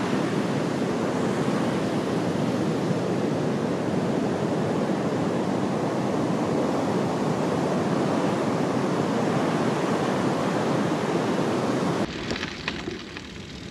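Ocean surf rushing steadily, mixed with wind. About twelve seconds in it cuts off abruptly to a much quieter background with a few light clicks.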